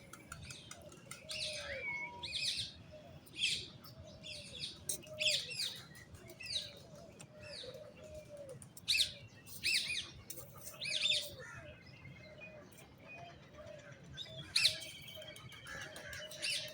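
A crowd of aviary birds calling: sharp, high chirps coming thick and irregular, with a steady run of lower, rounded calls underneath.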